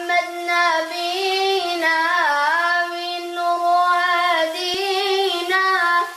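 A child singing a slow melody alone, in long held notes that bend and waver in pitch.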